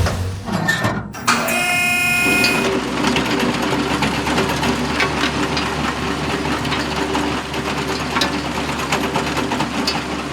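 A small motor running steadily with a rapid clicking rattle, after a short pitched tone about a second and a half in.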